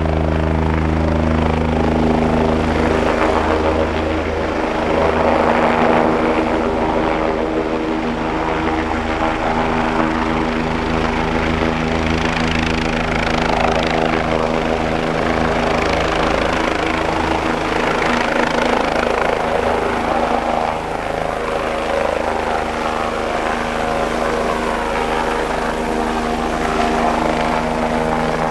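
Bell 427 helicopter's twin turboshaft engines and main rotor at flight power, a steady turbine whine over a pulsing rotor beat, as it hover-taxis to the helipad and then, past the middle, lifts off and accelerates away.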